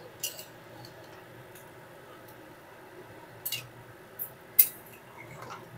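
A spatula stirring potatoes and masala with water in a cooking pan, with a few sharp clicks and scrapes of the spatula against the pan over a faint steady hiss.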